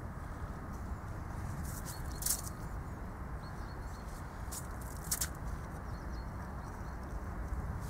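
A few brief scrapes and crunches of a hand tool working snow and ice at the edge of an ice-fishing hole, in two short bursts about two and five seconds in, over a steady low background rumble.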